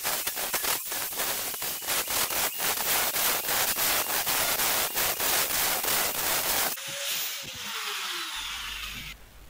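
Angle grinder with a thin cutting disc cutting through painted sheet steel, a loud continuous grind broken by many brief dips. About seven seconds in the cutting stops and the grinder's whine falls away as the disc spins down.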